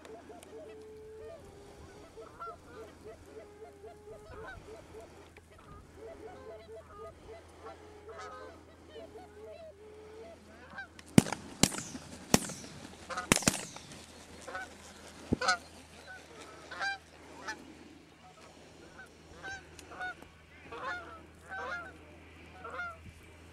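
Canada geese honking over and over. About halfway through comes a rapid volley of roughly six shotgun shots over about four seconds, and the honking carries on after it.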